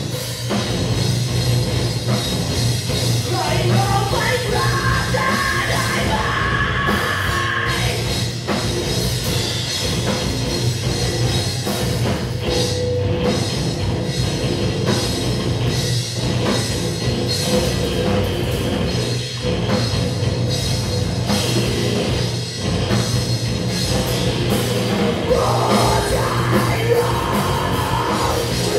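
Post-hardcore band playing live: electric guitars, bass, drums and keyboard, with a singer's voice.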